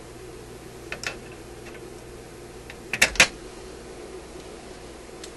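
A few short sharp clicks and taps of hand tools working inside a metal radio chassis, the loudest a quick pair about three seconds in, over a steady low hum.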